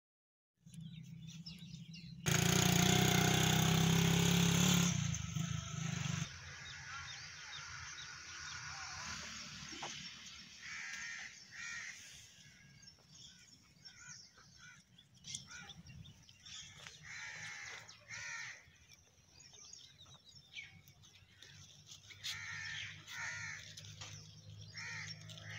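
Crows cawing again and again, often two calls in quick succession, over a low steady hum. About two seconds in, a loud rush of noise lasts for about three seconds.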